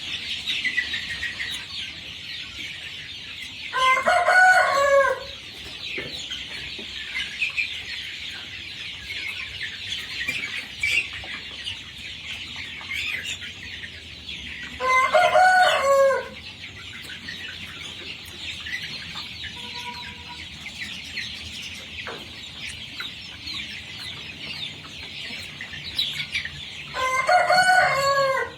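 Rooster crowing three times, about eleven seconds apart, over the constant high-pitched chatter of a flock of desi chickens.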